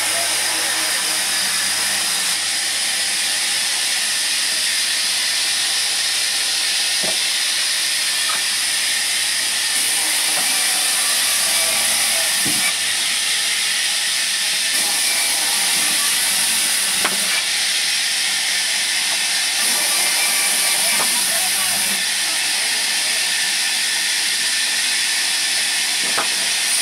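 Large log band sawmill running, a loud, steady high hiss, with a few short knocks as logs are handled at the carriage.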